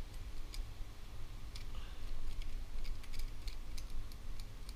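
Small metal fork scraping and clicking against the backbone inside a gutted mangrove snapper's body cavity, scratching out the blood veins along the spine, in irregular light ticks over a low steady rumble.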